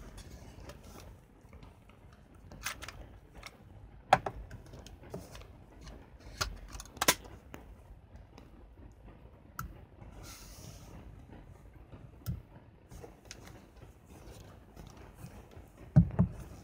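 Handling noise from a Canon EOS-1 film SLR body and its battery grip: scattered sharp plastic clicks and knocks as the parts are fitted together and the camera is turned in the hands, with a brief soft rustle about ten seconds in and a couple of heavier thumps near the end.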